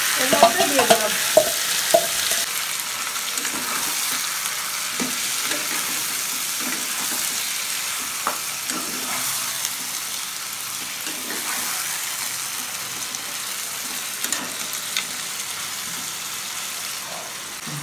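Marinated mutton sizzling as it fries in hot oil with browned onions in a non-stick kadai, stirred with a steel spatula that scrapes and clicks against the pan. The sizzle slowly gets quieter.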